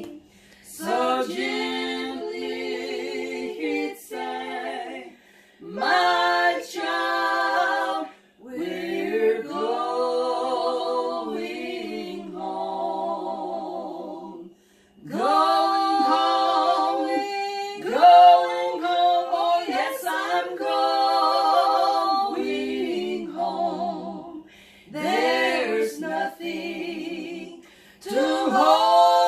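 Three women singing a worship song together a cappella, with no instruments, in phrases a few seconds long broken by short pauses for breath.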